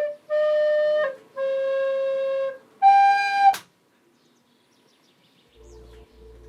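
Flute playing four long held notes of about a second each, the last one clearly higher, cut off by a sharp click. Faint soft music with a low beat comes in near the end.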